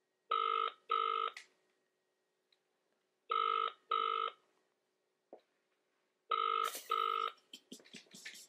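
Telephone ringing in double rings: three pairs of short rings about three seconds apart. Near the end, a run of clicks and crackles as the line is picked up.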